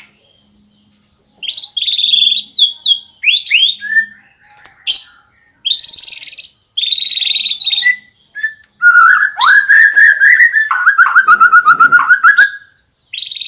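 White-rumped shama (murai batu) singing a song filled in with canary phrases: separate whistled notes and quick sweeping phrases, then about two-thirds of the way in a long, fast, canary-like trill of rapidly repeated notes.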